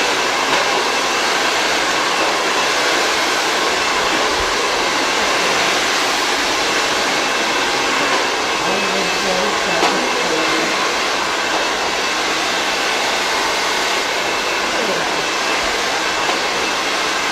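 Hand-held hair dryer running steadily on a continuous blow while hair is blow-dried.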